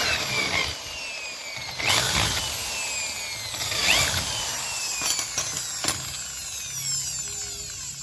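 Electric hand drill boring into the plastic hub of a washing-machine pulley, widening the hole. Its motor whine slides down in pitch again and again as the bit bites, with sharper spurts about two, four and six seconds in.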